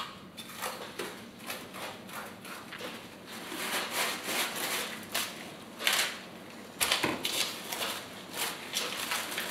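Plastic cling film being pulled from its roll and crinkled around a ball of dough, an irregular run of crackling rustles, with a sharper thump about seven seconds in.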